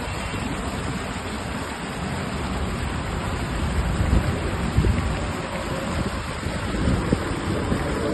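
Steady rushing noise of wind and water, with irregular low rumbling gusts, loudest around four to five seconds in.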